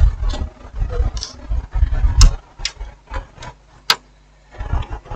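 Irregular clicks, taps and low bumps of LED TV parts being handled and fitted back together, the screen panel and backlight connectors going into place. A sharp click about four seconds in is the loudest.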